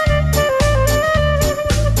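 Instrumental introduction of a Korean trot song playing from its backing track: a steady bass beat about twice a second under a lead melody line.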